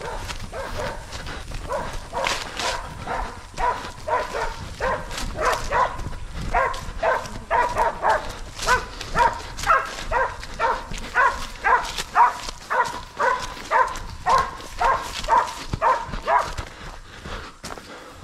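Dog barking over and over, about two barks a second, louder in the middle and stopping a couple of seconds before the end, over rustling and footsteps in the bush.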